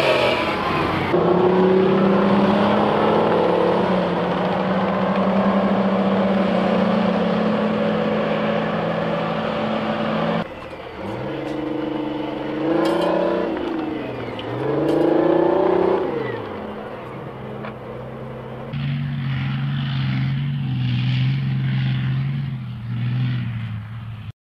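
Engines of tracked armored vehicles running as they drive. The sound changes abruptly a few times, and a stretch in the middle has the engine pitch rising and falling with revving.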